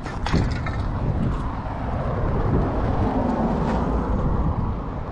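Road traffic on a city street, with a vehicle passing by around the middle.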